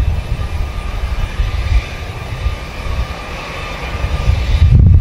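Jet engines of a large four-engine military transport aircraft rolling on a runway: a steady turbine whine over a deep rumble, getting louder near the end.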